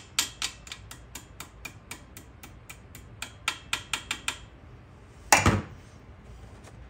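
Ratchet wrench clicking steadily, about four clicks a second for some four seconds, then a single loud knock about five seconds in.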